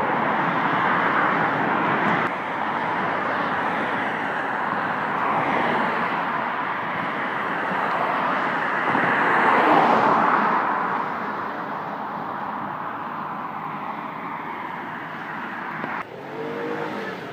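Road traffic on a large bridge: a steady rush of car noise that swells and fades as vehicles pass, loudest about ten seconds in, then drops off abruptly near the end.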